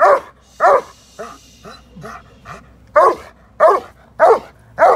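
A large black shepherd-type dog barking: two loud barks at the start, softer short yips over the next second or two, then four loud barks in quick succession, about 0.6 s apart.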